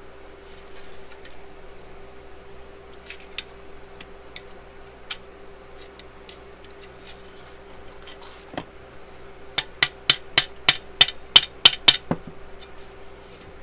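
Metal clicks and clinks as a homebuilt aircraft's powder-coated flap handle is fitted and worked in its aluminium bracket: scattered single clicks, then a quick run of about a dozen sharp clicks, roughly five a second, a few seconds before the end. A steady hum runs underneath.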